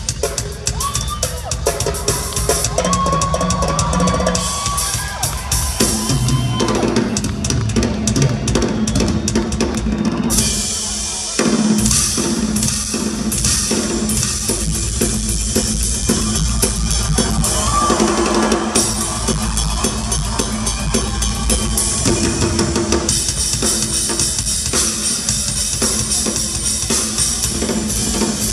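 Rock drum kit played live in a drum solo, with rapid fills on snare and toms over a bass drum and crashing cymbals, loud through the concert PA. About ten seconds in it eases off briefly, then comes back louder.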